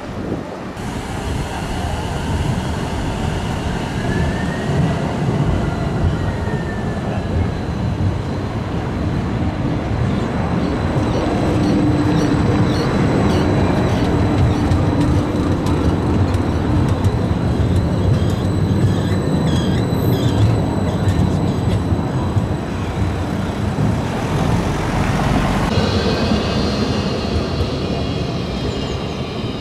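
Electric trams passing close by on street tracks: a steady low rumble of wheels on the rails, with thin high squeals of the wheels now and then. Near the end the sound changes to a quieter street with a tram approaching.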